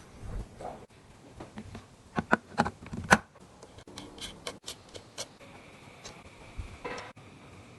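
Irregular sharp clicks and knocks of hard parts or tools being handled on a workbench. A few louder knocks come about two to three seconds in, followed by a run of lighter clicks.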